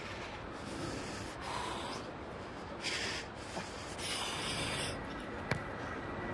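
Short, heavy breaths and snorts, close on a body-worn microphone, as an Australian rules footballer runs in to kick for goal, then a single sharp thud of the boot striking the football about five and a half seconds in.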